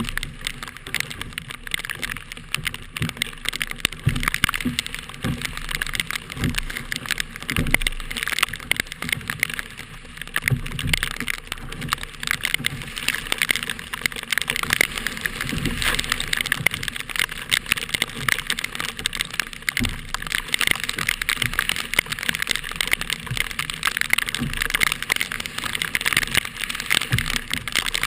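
Strong wind buffeting the microphone in irregular low thumps, over a steady crackling hiss of wind and water.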